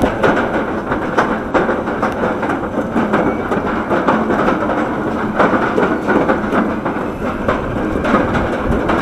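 Bolliger & Mabillard hypercoaster train climbing its chain lift hill, heard from on board: the lift chain clattering with a rapid, continuous run of anti-rollback clicks.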